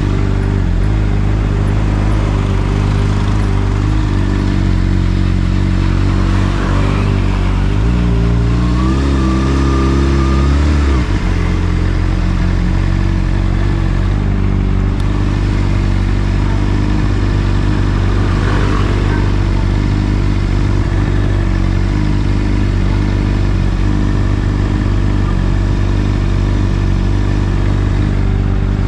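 Honda CBR600RR's inline-four engine running through an Akrapovic exhaust while riding at fairly steady revs. About eight seconds in the revs climb for a few seconds, then drop sharply, and the engine settles back to a steady drone.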